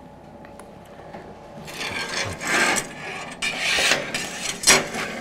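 Steel scraping against steel at a welding bench, several scraping strokes from about a second and a half in, then a sharp clank near the end.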